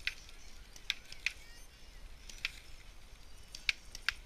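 Scattered sharp pops from paintball markers firing at the biathlon range, irregularly spaced, with a pair in quick succession near the end.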